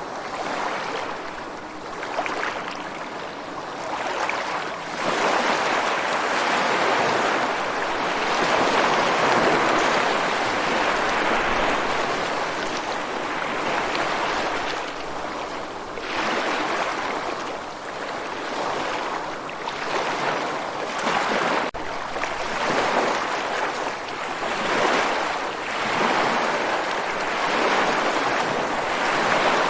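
Ocean surf: waves breaking and washing ashore in a continuous rush that swells and ebbs every few seconds.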